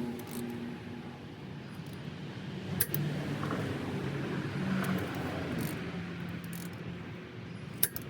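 Click-type torque wrench clicking off twice, about five seconds apart, as the caliper bracket bolts reach their set torque, over a steady workshop hum.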